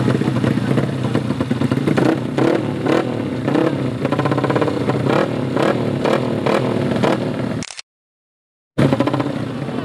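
Modified drag-race motorcycles running at the start line, their throttles blipped in a rapid string of revs. The sound cuts out completely for about a second near the end, then the engines come back.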